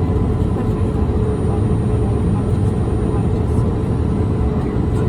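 Steady cabin noise inside a Boeing 787 Dreamliner: an even rumble of engines and airflow with a faint steady hum through it.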